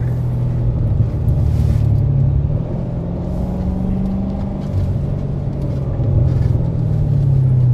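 Car engine and road noise heard from inside the cabin: a steady low drone, with the engine note rising and easing a little about midway.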